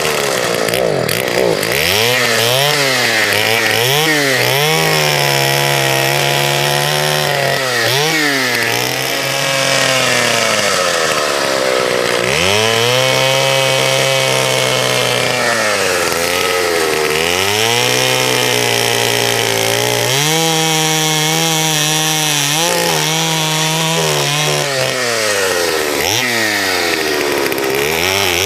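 Vintage Partner S55 55cc two-stroke chainsaw cutting firewood slices from dry, dead wood. The engine runs at high revs through each cut, and its pitch drops sharply and climbs back about seven times as the throttle is eased and reopened between cuts.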